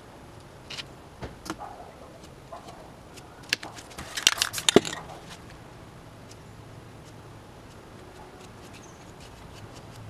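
Sheet of paper being crumpled by hand into a ball: a few scattered crinkles, then a dense burst of sharp crackling about four seconds in that stops after about a second.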